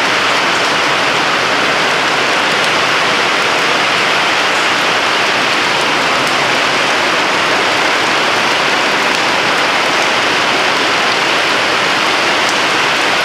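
Heavy rain falling steadily, a dense even hiss with scattered drop ticks.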